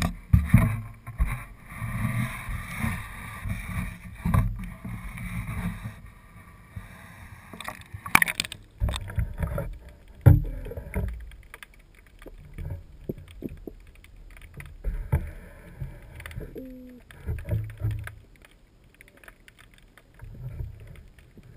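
Irregular bumps and knocks on a small fishing boat, with water splashing; the sharpest knocks come about eight and ten seconds in.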